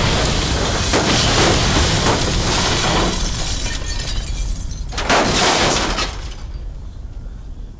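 A car exploding into flames: the blast carries on with glass breaking and debris falling, a second blast comes about five seconds in, and the noise dies down near the end.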